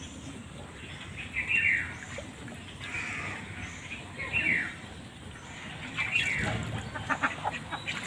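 Domestic ducks quacking: about four separate short calls spaced a second or two apart.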